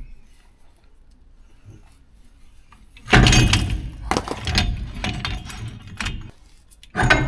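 Clattering and knocking of tools and parts, a loud dense run of sharp hits starting about three seconds in and lasting some three seconds, then another short burst near the end.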